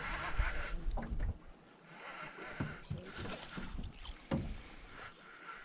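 Wind rumbling on the microphone and water lapping against a small boat, then a few short splashes as a hooked smallmouth bass is reeled up to the boat's side.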